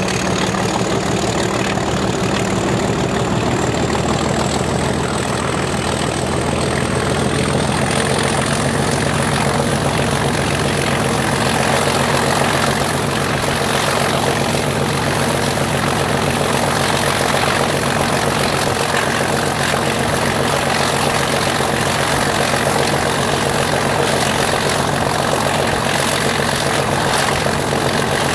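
Class 37 diesel locomotive's English Electric V12 engine working under power, heard close by from a train window, its high turbocharger whistle rising in pitch over the first ten seconds or so and then holding steady above the engine's throb and a steady rushing noise.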